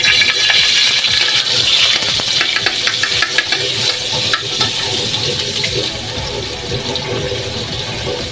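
Margarine sizzling and crackling as it melts in a hot oiled wok, with a utensil clicking and scraping against the pan as it pushes the margarine around. The clicks come in the first half, and the sizzle eases slightly after about six seconds.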